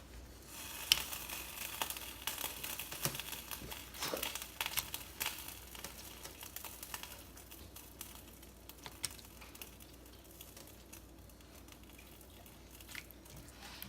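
Light sizzling in a pan as the chicken goes back into the creamy sauce on the heat, with scattered clicks and taps from utensils, busiest in the first half and fading to a quieter hiss later.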